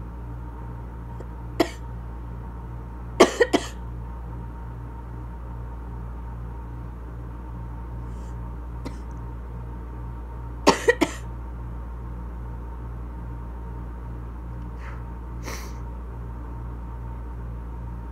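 A woman coughing from asthma, in short fits over a steady low hum: one cough, then a quick run of three a couple of seconds later, and another run of three about halfway through. A few fainter sounds follow.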